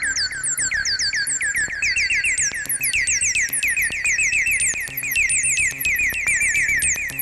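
Behringer TD-3-MO acid bass synth playing a fast arpeggio, played from a KeyStep 37. Each note is a short, bright chirp falling quickly in pitch, over low pulses.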